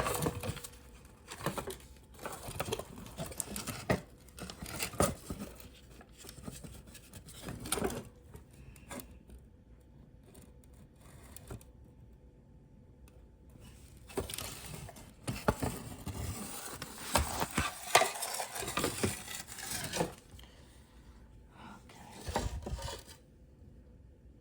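Plastic parts of a car side mirror being handled and fitted: scattered clicks, rattles and scrapes in two spells with a quieter pause between, cutting off suddenly near the end.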